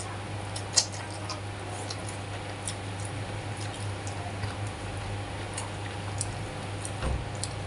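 Close-up eating sounds: fish soup slurped and chewed from a metal spoon, with small wet mouth noises and light clicks of the spoon against the plastic bowl. One sharper click comes about a second in, over a steady low hum.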